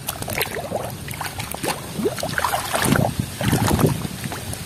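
Muddy water sloshing and splashing in a basin as a toy ladder truck is rubbed and scrubbed in it by hand, in irregular uneven splashes.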